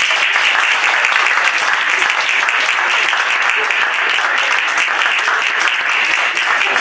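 Audience applauding: many hands clapping steadily and loudly.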